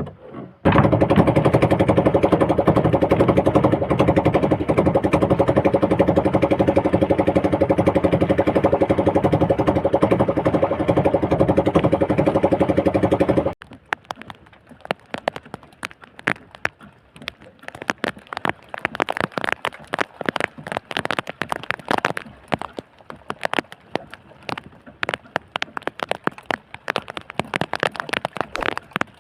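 A motor runs steadily with a hum, then cuts off suddenly about thirteen seconds in. After it comes irregular crackling and tapping.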